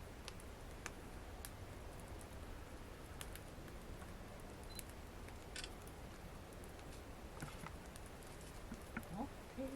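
Wood fire crackling in a fireplace: sparse, irregular pops and snaps over a low steady hiss.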